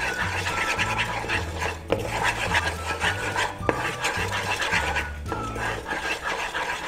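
Spatula scraping and rubbing quickly round a non-stick pan through thick, foaming jaggery syrup, a fast repeated rasping. The jaggery is being cooked in ghee to its frothy stage for sesame laddu.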